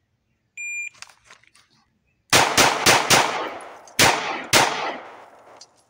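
A shot timer beeps once, high and steady. After the draw, a CZ P01 9mm pistol fires six shots: four fast ones about a third of a second apart, then a brief pause and two more about half a second apart, each shot echoing off.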